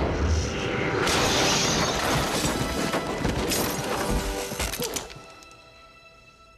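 Film sound effects of a person crashing through a window: glass shattering, then heavy thuds of a body tumbling down a stairwell, over a tense orchestral score. About five seconds in the crashing stops abruptly, leaving a faint held musical tone.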